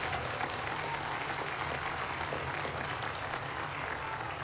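Crowd applauding, many people clapping at a steady level.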